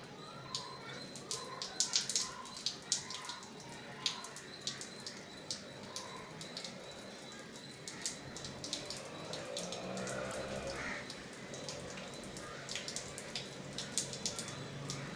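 Salt water from a jala neti pot running out of a nostril and dripping and splashing into a basin: irregular drips, thickest in the first few seconds, then sparser.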